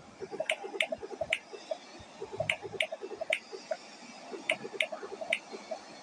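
Clock ticking from a countdown timer: a steady run of light ticks, several a second, in an uneven repeating pattern.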